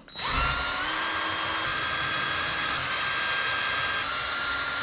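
A small electric motor running with a steady high-pitched whine, spinning up quickly at the start and then holding an even speed with slight shifts in pitch.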